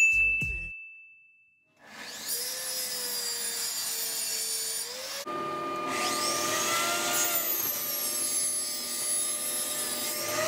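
A single notification-bell ding at the start, then a table saw running and cutting through a board, a steady machine sound with shifting pitch as the blade loads.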